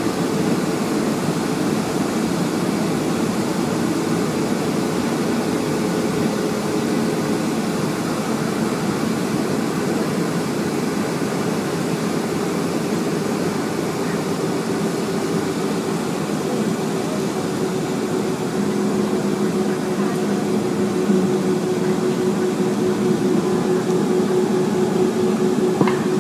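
Cabin noise inside a Boeing 757-232 taxiing after landing, heard from a seat over the wing: the Pratt & Whitney PW2037 engines running at idle with airflow and air-conditioning hiss, as a steady hum with a low drone through it.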